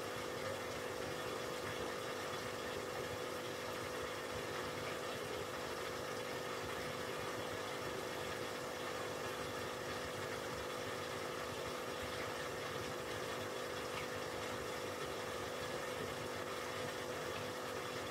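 Aquarium air pump and filter running, a steady hum under an even hiss of water and air.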